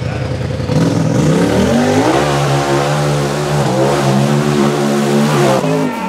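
RZR buggy's engine revving hard under full throttle as it claws up a steep dirt hill climb. The pitch climbs over the first two seconds, holds high, then drops off just before the end.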